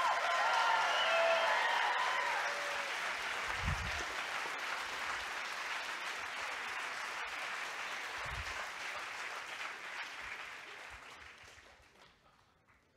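Large audience applauding, the clapping dying away over the last few seconds.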